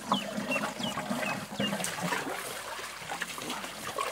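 Water trickling and sloshing as a plastic bucket is dipped and filled in a muddy puddle, with a few short, high chirps in the first two seconds.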